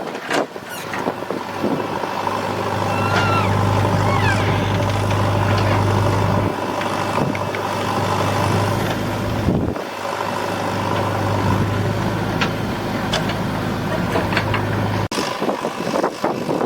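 Diesel engine of a JCB 4DX backhoe loader running steadily with a deep hum as it works loading soil. It drops out briefly a little past halfway and cuts off sharply near the end.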